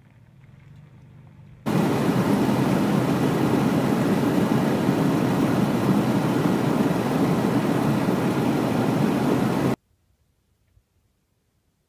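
Steady road and wind noise of a car driving, heard from inside the cabin. It starts suddenly about two seconds in and cuts off suddenly near the end.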